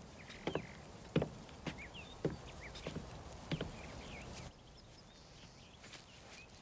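Footsteps walking away, about six steps half a second apart, over birds chirping. The steps stop about halfway through and the birdsong goes on more faintly.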